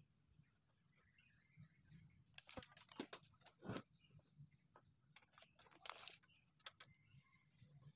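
Faint, quiet handling of wooden blocks on a wooden workbench: a few light knocks and clicks as the pieces are shifted and set against each other, a cluster a few seconds in and another about six seconds in.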